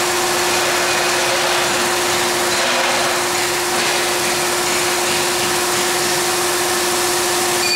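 Sugar-coating pan machine running with a steady hum under a steady hiss of compressed air, as its spray gun atomizes liquid into a fine mist while the gun's air pressure is adjusted.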